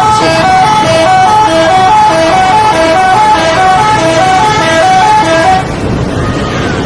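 Bus 'telolet' horn, a multi-tone musical air horn, playing a fast repeating tune of two alternating notes, about three a second, then cutting off about five and a half seconds in.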